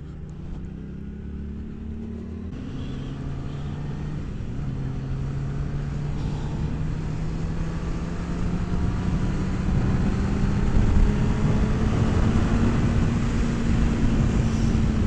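Kawasaki sportbike engine pulling steadily under acceleration, its note rising slowly in pitch while wind rush builds and the sound grows louder.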